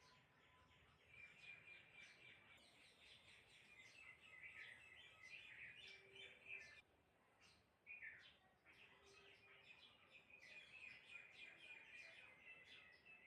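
Birds chirping faintly: a busy run of short, high chirps that eases off briefly about seven seconds in.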